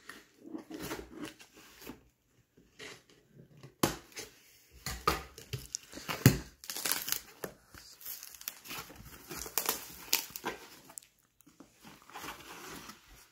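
Cardboard shipping box being opened by hand: packing tape cut and torn and the flaps pulled open, with rustling and crinkling of cardboard and plastic packaging and irregular knocks and scrapes, the sharpest knock about six seconds in.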